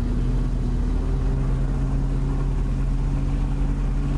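Car driving at a steady speed: an even engine hum over a continuous low road rumble.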